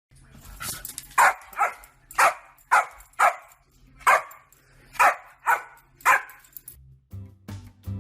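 A dog barking about ten times, several of the barks in quick pairs, over a faint low hum. Music starts near the end.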